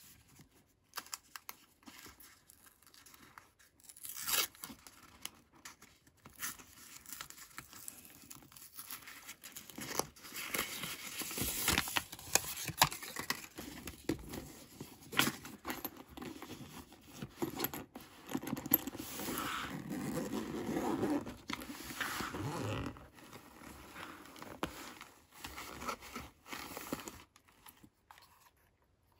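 Hands handling a DJI fabric shoulder bag and its strap: irregular rustling and scraping with scattered sharp clicks and taps, busiest through the middle stretch.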